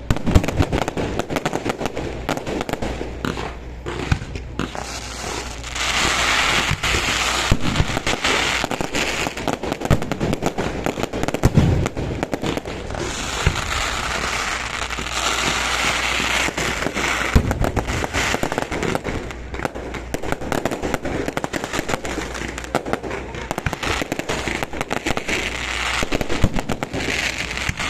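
Aerial fireworks display: a continuous run of sharp bangs and pops, swelling three times into dense crackling.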